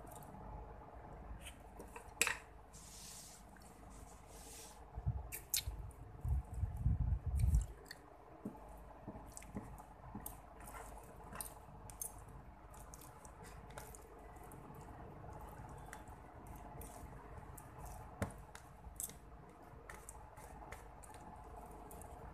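Close-up eating sounds: wet chewing and mouth clicks as spaghetti is eaten, with a fork working in a paper tray. A few low thumps about five to eight seconds in.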